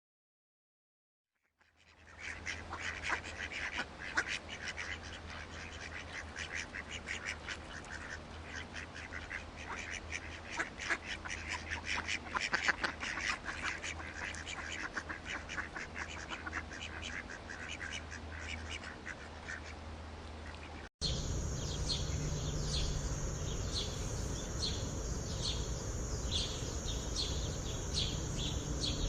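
A flock of birds calling rapidly and continuously over a low hum. About three-quarters of the way in, a hard cut switches to a different, higher-pitched recording of rapid repeated calls.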